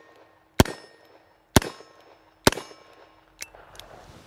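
SAR 38 revolver firing .357 Magnum rounds: three sharp shots about a second apart, each with a short ringing tail, then a much softer click about a second after the last shot.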